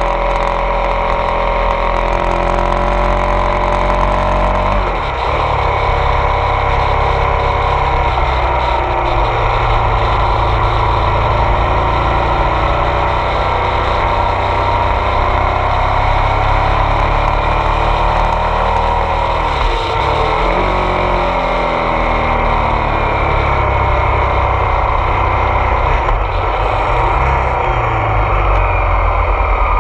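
Ducati Multistrada 1200 S DVT's L-twin engine under way, its pitch rising and falling with the throttle. The note drops off briefly about five seconds in and again about twenty seconds in.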